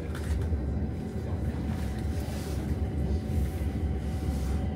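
Stockholm metro train heard from inside the car while it moves: a steady low rumble with a faint steady whine held above it.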